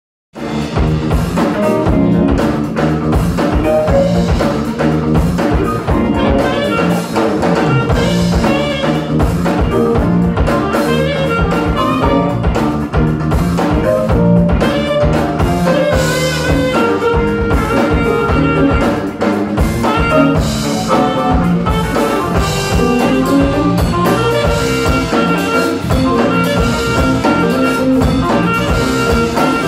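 Live jazz band jamming: saxophone lead over drum kit, electric bass, electric guitar and keyboard.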